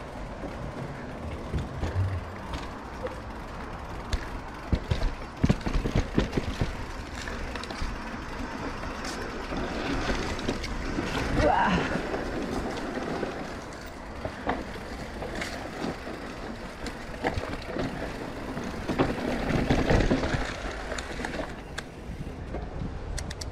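Ibis Mojo HD3 mountain bike riding down a dirt trail, heard from a chest mount: tyres rolling over dirt and roots with wind noise, and the bike rattling with a run of sharp knocks a few seconds in.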